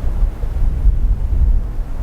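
Strong gusting wind buffeting the microphone: a loud, uneven low rumble that swells and dips.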